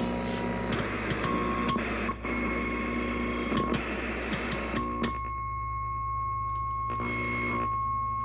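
Audio from a vintage tube television's speaker: a steady high test tone, replaced for about the first five seconds by noisy, music-like sound, then returning with a short break near the end. A steady low hum runs underneath.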